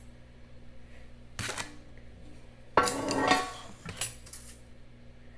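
Metal kitchen utensils clattering as a chef's knife and other tools are handled: a light clink about a second and a half in, a louder ringing metal clatter around three seconds, and another clink about a second later.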